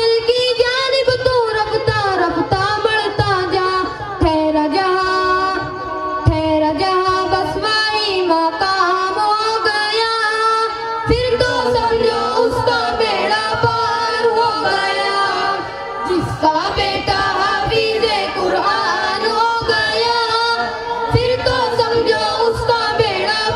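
Group of boys singing an Urdu devotional song together into microphones, a continuous sung melody with long held notes.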